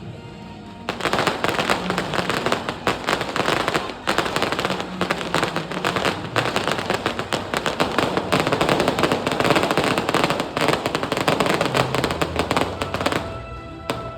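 Fireworks crackling in a dense, rapid string of pops. It starts suddenly about a second in and cuts off a second before the end, with music playing underneath.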